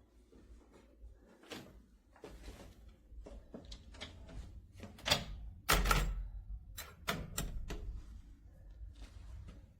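A door and its latch being handled: a string of clicks and knocks, the loudest a pair about five to six seconds in, with a few more just after seven seconds.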